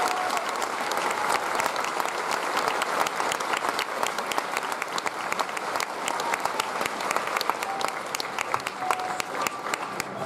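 Audience applauding: a crowd clapping steadily, dense with many individual sharp claps.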